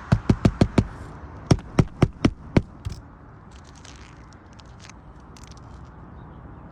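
Roof shingle being nailed down during a repair: two quick runs of five sharp strikes, about six a second, then a few lighter taps.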